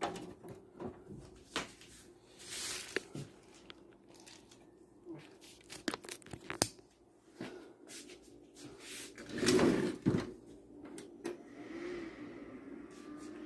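Handling noise around a desktop PC being tested with a new power supply: scattered clicks and knocks with two bursts of rustling, over a faint steady hum.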